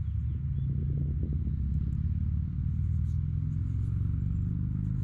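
Low, steady engine-like rumble, with faint light ticks as coins are handled in the fingers.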